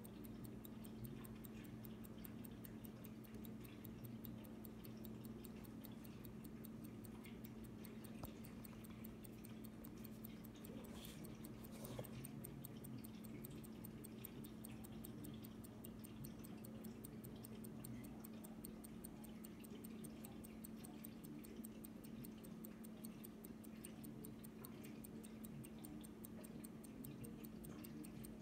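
A 1926 Hamilton 902 12-size, 19-jewel pocket watch ticking faintly, a fast and even tick from its running movement. There is a single soft knock about twelve seconds in.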